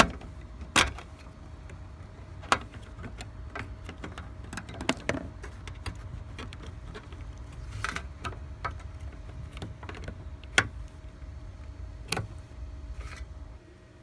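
Plastic trim tool prying a license plate light housing out of a car's trunk trim, then the housing being worked loose: a string of sharp plastic clicks and snaps at irregular intervals, the loudest about ten seconds in, over a low steady rumble.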